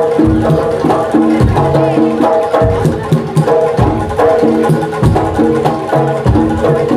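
East Javanese jaranan (kuda lumping) ensemble music played loud over a sound system: repeating pitched percussion notes over deep drum beats about once a second.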